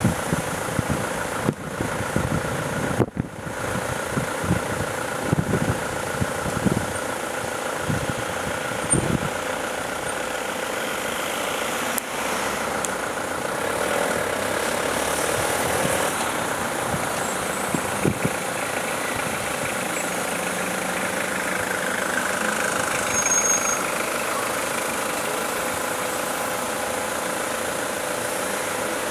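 Motor vehicle engine running steadily at low speed, with a few short low thumps in the first nine seconds.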